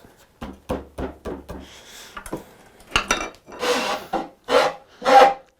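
Hand tool working quartersawn white oak in repeated strokes: a few short quick strokes, then longer, louder strokes in the second half.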